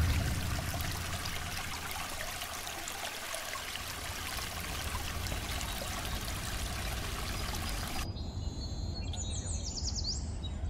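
Shallow creek trickling over stones, a steady watery hiss. About eight seconds in the water sound drops away to a quieter background with a few short, high bird chirps.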